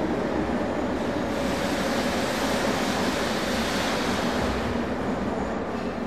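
Moscow Metro train moving at an underground station platform: a steady rumble with a rushing hiss that swells about a second and a half in and fades away near the end.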